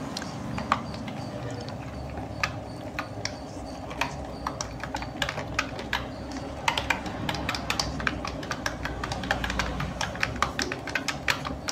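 Typing on a computer keyboard: irregular key clicks in quick runs, sparse at first and denser from about the middle on.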